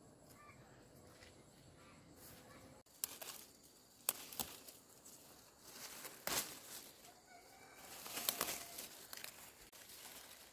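Leafy fern-like foliage rustling as a hand pushes in among the fronds, with several sharp snaps or clicks spread irregularly through it.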